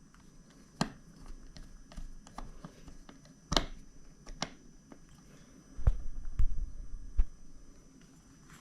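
Small clicks and taps of hands handling the plastic parts of a cordless work light during reassembly, with a few sharper clicks and a stretch of low handling bumps about six seconds in.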